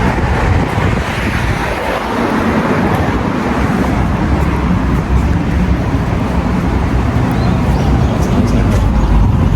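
Steady road traffic noise: vehicle engines and tyres running past.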